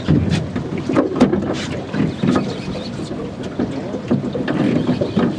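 Sounds aboard a small fishing boat at sea: a steady rush of wind and water, with scattered knocks and clicks throughout.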